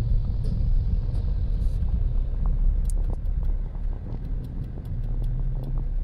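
Car engine running and a steady low rumble heard from inside the cabin as the vehicle rolls slowly along a dirt road.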